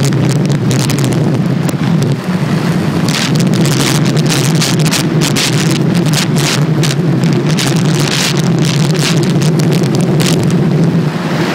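Inline skate wheels rolling fast down rough asphalt, a loud steady rumble, with irregular gusts of wind buffeting the microphone.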